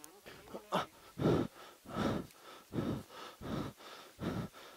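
A person breathing hard in quick, ragged breaths, about six in a row, as a rider does who has just crashed a motorcycle and is walking back to it.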